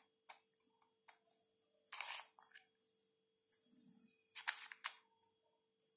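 Faint clicks and scrapes of a plastic Nautilus twisty puzzle being turned by hand, a few separate clicks over several seconds, with a longer scrape about two seconds in. A faint steady hum runs underneath.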